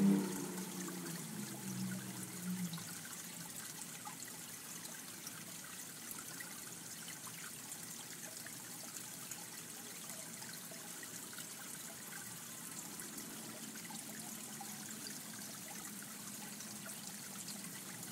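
Steady faint trickle of water from the pond. In the first three seconds a low tune fades out over it.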